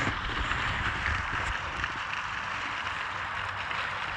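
Steady outdoor background noise: an even hiss with a faint low rumble underneath and no distinct event standing out.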